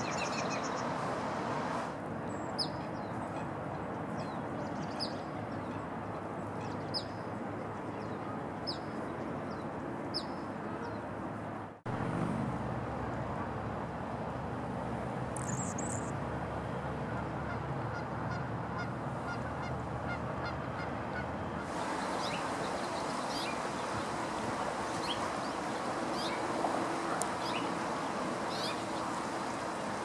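Bird sounds from three species in turn over a steady background rush. First a black phoebe gives sharp, downslurred chip calls about every two seconds. Then a male Anna's hummingbird gives a brief high buzzy note, and a house finch sings a run of many quick high notes.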